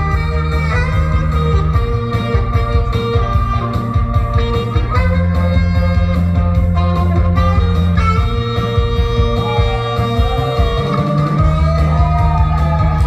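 Saxophone playing a Korean pop song over a pop-rock backing track with electric guitar, bass and drums; the bass changes note every few seconds.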